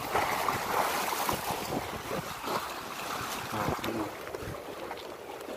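Sea waves washing and splashing against concrete breakwater blocks, with wind buffeting the microphone; loudest in the first second or so, then settling lower.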